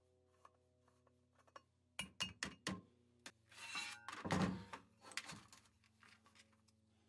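Tools and hardware handled on a cast-iron Christmas tree stand as its bakelite receptacle is taken off. About two seconds in come a handful of sharp clicks and clinks as the receptacle comes loose. A heavy scraping thud follows as the cast-iron base is lifted and shifted, the loudest sound, then a few light clicks.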